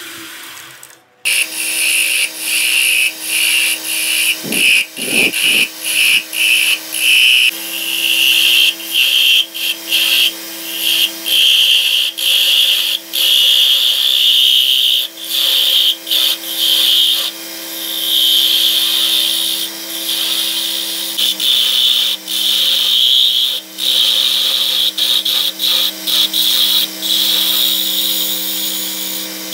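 Wood lathe running with a steady motor hum while a turning tool cuts the spinning wooden blank, a hissing shaving sound that keeps breaking off and coming back as the tool is pressed in and eased off.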